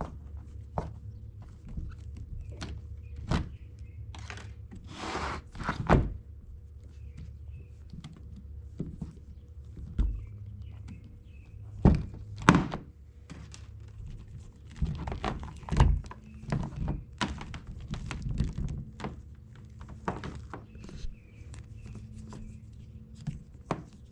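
Handling noises as a coil of wire from a car-audio amp wiring kit is unwrapped: scattered thumps and clicks, with a brief rustle about five seconds in, over a low steady hum.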